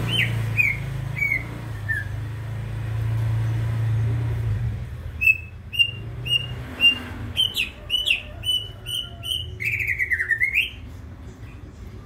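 Male greater green leafbird singing: a few clear whistled notes at first, then from about five seconds in a run of short repeated whistles, about two a second, ending in a longer note that sweeps down and back up. A low steady hum sits under the first few seconds.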